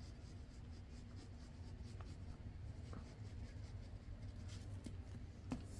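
Faint scratching of a plastic squeeze glue bottle's fine tip dragged along paper as glue is laid down, with a few light ticks and a low steady hum underneath.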